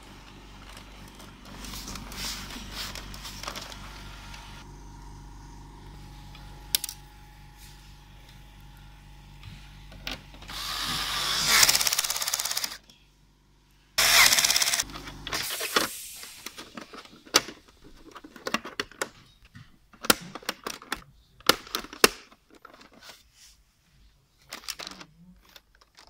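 Cordless screwdriver whirring in two short runs near the middle while the back cover and stand of a Dell OptiPlex 3030 all-in-one are fitted, followed by many sharp plastic clicks and knocks as parts are clipped and handled.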